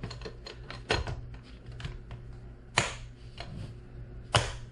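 Plastic lid of an electric lunch box being pressed on and clipped shut: a run of sharp plastic clicks, the two loudest about three seconds in and near the end.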